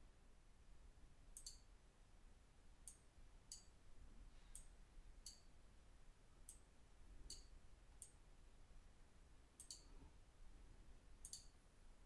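Faint computer mouse clicks, about nine spread unevenly, several heard as a quick double tick, over near silence.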